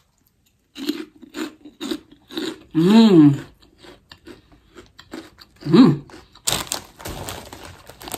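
Crisp pork rinds crunching as a person bites and chews them, with two short hums of enjoyment partway through and a stretch of loud crunching near the end.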